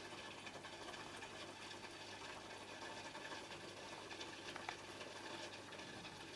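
Faint, steady bubbling of aquarium aeration with a low hum from the tank's pump.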